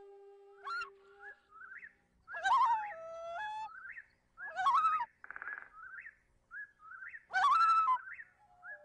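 Birdsong in a flute music soundtrack: a held flute note fades about a second in, then a series of short rising whistles and chirps, with three louder, harsher calls and a brief rapid trill.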